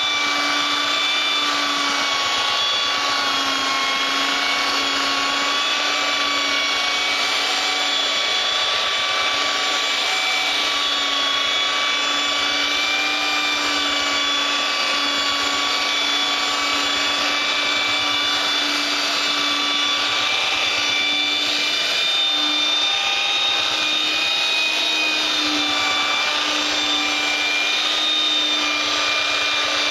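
Electric power sander running steadily while sanding a wooden cutting board, a constant motor hum with a slight waver in pitch over the scratch of sandpaper on wood.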